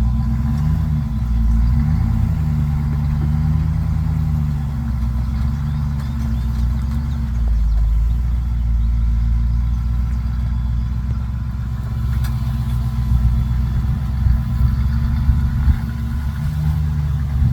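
Off-road vehicle engine running, its revs rising and falling, with a few short knocks or bumps near the end.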